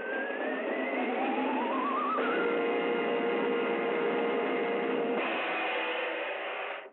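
Orchestral opening music on an early-1930s cartoon soundtrack: held chords with two rising swoops in the first two seconds, the chord changing about two seconds in and again about five seconds in, then breaking off at the end. The recording has the narrow, top-less sound of early sound film.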